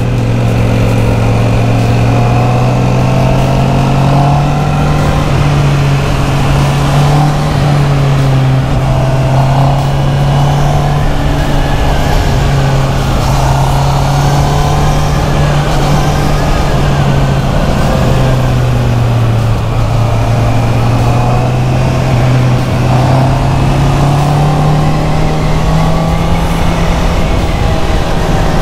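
Motorcycle engine running at a steady cruise, its note dipping briefly about twenty seconds in, with wind buffeting the microphone.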